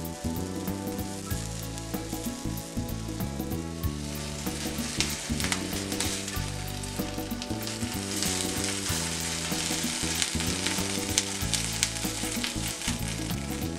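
Whole tomatoes and jalapeño peppers sizzling and crackling as their skins roast and char on foil over a hot stove burner, with crackles growing more frequent from about four seconds in. The food is shifted by hand partway through.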